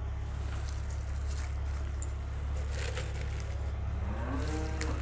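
Spinach leaves rustling as handfuls are dropped into a clay bowl of hot water, over a steady low hum. Near the end an engine revs up with a rising pitch.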